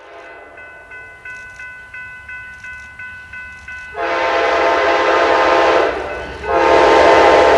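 A bell rings steadily at about three strikes a second as a passenger train approaches, then the locomotive's air horn sounds two long, loud blasts, the second starting about six and a half seconds in.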